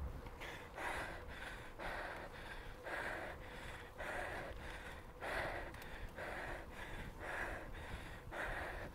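A cyclist breathing hard while riding, quick rhythmic breaths about two a second, over low wind and road rumble.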